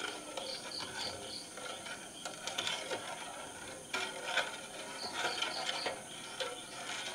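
Outdoor garden ambience: steady insect chirring, with two short runs of about four quick high chirps.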